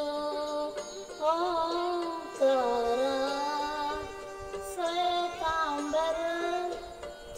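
Hindu devotional aarti music, its ornamented melody sliding and bending between notes.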